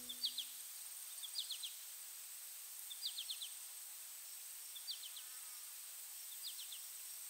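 Faint outdoor ambience: short clusters of three or four quick high chirps repeat about every second and a half over a steady hiss. The last note of music dies away in the first half-second.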